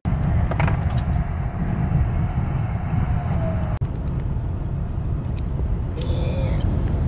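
Road noise inside a vehicle's cab at highway speed: a steady low rumble of tyres and engine on a bumpy interstate, broken by a brief dropout about four seconds in.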